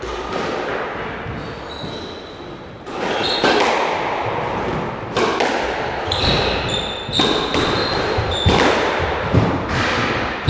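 Squash rally: the ball smacking off rackets and the walls about once a second, starting about three seconds in, with short high squeaks of court shoes on the wooden floor.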